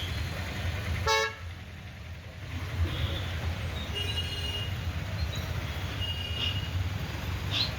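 Highway traffic running with a steady low engine rumble. A short, loud horn toot comes about a second in, and fainter horns sound a few more times later on.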